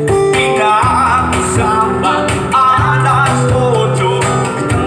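Live acoustic band music: a guitar and hand percussion keeping a steady beat while a woman sings a wavering melody.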